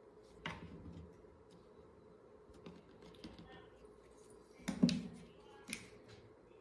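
Scattered light taps and clicks of small craft pieces and fingers handled on a tabletop, with one louder knock a little before the five-second mark.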